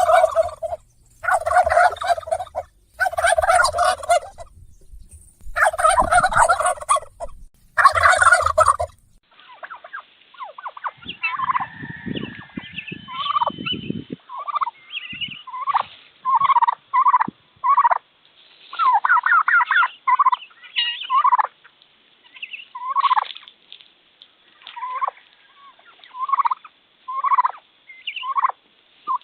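Turkeys gobbling. About five long rattling gobbles come in the first nine seconds. After that a second recording takes over, with many shorter gobbles and calls.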